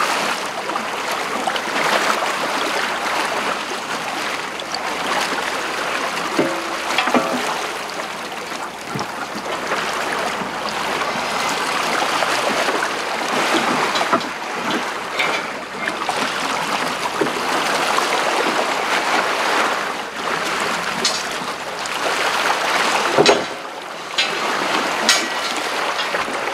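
Sea water rushing and churning along the hull and in the wake of a slow-moving trawler, as a steady hiss. There are a few sharp knocks and clinks, the loudest about 23 seconds in.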